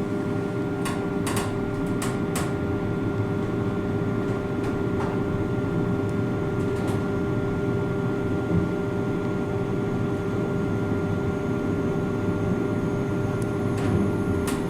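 Inside a Kone MonoSpace machine-room-less lift car as it travels: a steady hum and whir with a constant tone, with a few sharp clicks about a second in and again near the end.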